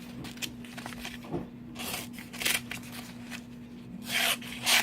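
Small multi-tool knife blade slicing through a sheet of copy paper: several short papery swishes, two pairs of them, about two seconds in and again near the end.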